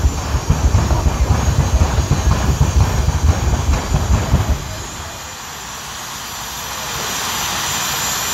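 A loud, uneven low rumble that drops away at about four and a half seconds. Then a jet dragster's turbine engine spools up at the starting line, a rising hiss that builds over a couple of seconds and holds steady.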